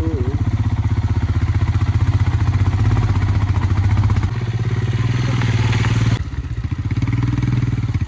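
Royal Enfield Himalayan's single-cylinder engine pulling under throttle on a rough off-road track, easing off about four seconds in and dropping sharply about six seconds in before picking up again.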